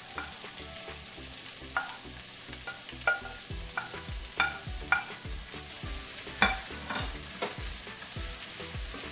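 Chopped onions sizzling as they go into hot oil in a nonstick frying pan and are stirred with a wooden spoon. The spoon gives a series of sharp knocks against the plate and pan, the loudest about six and a half seconds in.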